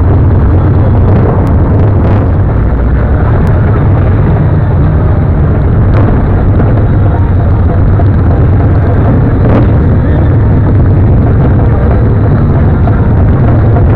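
Steady, loud low rumble of a motorcycle riding slowly in traffic: engine running with heavy wind buffeting on the camera microphone.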